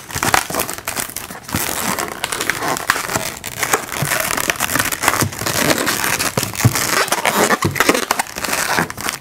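Latex twisting balloons being handled, twisted and wrapped by hand, rubbing against each other and the hands in a continuous crinkling rub scattered with many small clicks.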